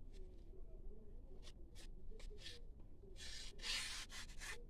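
Knife blade slicing through a sheet of paper in a sharpness test: a few faint ticks, then a longer papery hiss about three seconds in.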